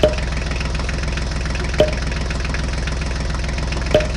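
Tractor engine idling with a steady knocking beat, with three sharp clicks about two seconds apart.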